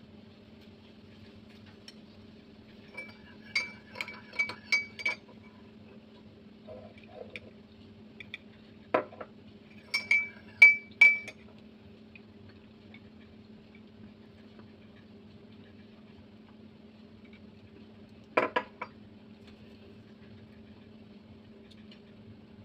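A metal spoon clinking against a ceramic cup of milk, in two quick runs of ringing taps, about five and then three. A couple of duller single knocks of cutlery on a plate fall between them, over a faint steady low hum.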